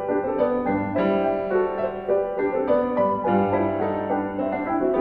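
Background piano music, a continuous run of notes.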